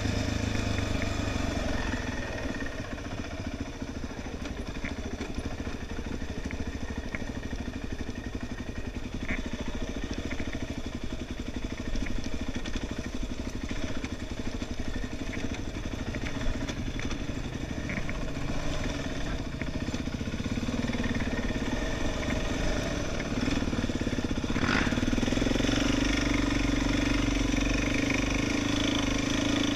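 Quad bike engine running under way on a dirt trail, with scattered light ticks. The engine note grows louder about three quarters of the way through.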